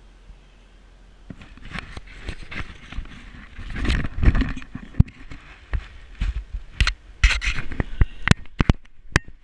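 Handling noise from a small action camera being moved by hand. Cloth rubs over the microphone, loudest about four seconds in, then comes a run of sharp clicks and knocks near the end as the camera is set in place.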